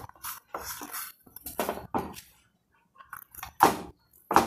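Short knocks, clinks and scrapes of a frying pan and a plate being handled as buttered bread is moved from the pan onto the plate, the loudest about three and a half seconds in.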